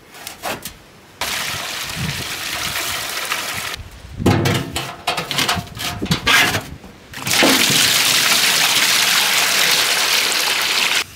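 Maple sap poured from a plastic bucket into stainless steel pans on a wood-fired evaporator. It comes as a steady splashing pour, then sloshing and knocks, then a second long pour from about seven seconds in that stops suddenly near the end.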